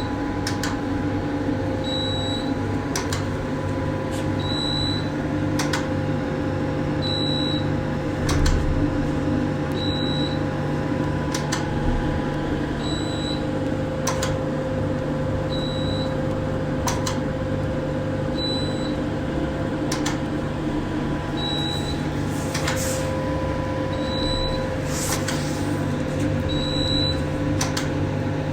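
Pico laser beauty machine running: a steady hum from its internals, with a short high beep about every two seconds and sharp clicks scattered between them.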